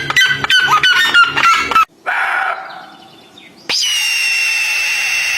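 Bird calls, likely fowl, in quick succession. A rapid run of repeated calls, about five a second, stops abruptly just under two seconds in. A shorter call follows, and then, from about two-thirds of the way through, one long, steady, high-pitched call held for about two seconds.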